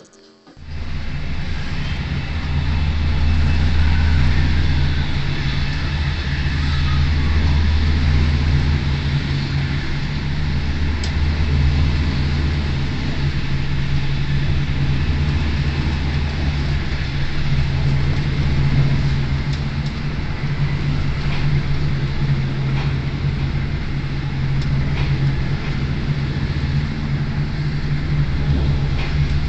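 Inside a moving regional train carriage: a steady low rumble and rolling noise that starts suddenly about half a second in and runs evenly, with a few faint clicks.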